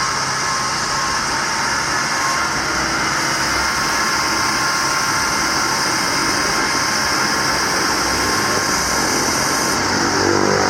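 6.6L Duramax V8 diesel engine of a GMC C5500 bucket truck idling steadily, with a constant hiss over the engine note.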